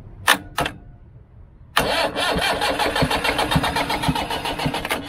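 Two sharp clicks, then the starter motor cranks the 1989 Mahindra jeep's diesel engine for about three seconds with a steady rhythmic churn, and stops suddenly without the engine firing. The engine has stood for four years, and the men suspect it is not getting diesel.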